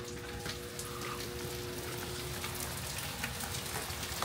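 Heavy rain falling steadily, a continuous wash of noise with scattered drops ticking.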